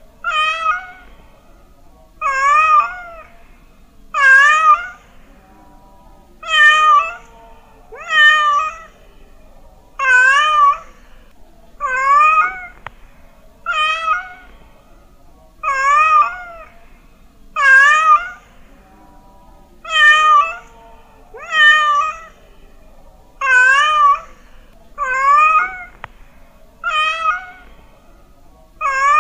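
Domestic cat meowing over and over, one meow about every two seconds, each call wavering up and down in pitch.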